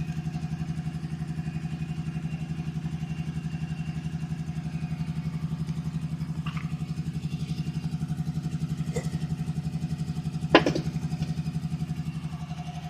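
Air compressor's engine running steadily with an even, fast throb. A single sharp knock comes about ten and a half seconds in.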